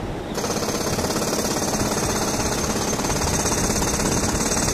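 Jet engines of a taxiing Boeing 767-300F freighter heard from a distance: a steady rumble with a rapid flutter, joined by a hiss that comes in suddenly about a third of a second in.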